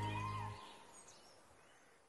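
Background music with a held low note fades out about half a second in, leaving faint bird calls over quiet outdoor ambience.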